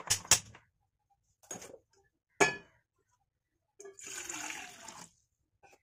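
A stainless steel pot knocking and clanking onto the metal grate of a gas burner a few times, the loudest clank about two and a half seconds in, then water poured from a steel cup into the pot, splashing steadily for about a second.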